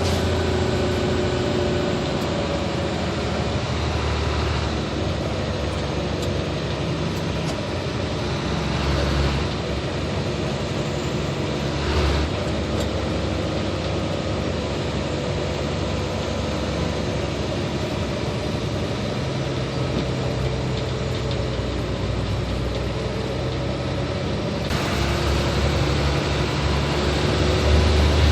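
Hino 500 truck's diesel engine running steadily while driving, with road noise and a single knock about twelve seconds in. It grows louder near the end.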